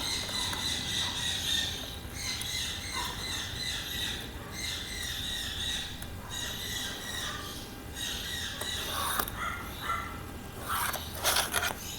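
Birds chirping and squawking in the background as a steady, continuous chatter, with a few light handling clicks near the end.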